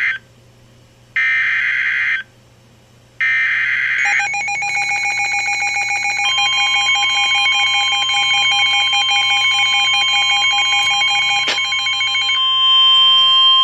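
Emergency Alert System header data bursts: the end of one and two more, about a second each with short silent gaps. Then the alert attention tone, a harsh, continuous, pulsing tone that settles into a steadier tone about three quarters of the way through. It is the signal that opens a severe thunderstorm warning.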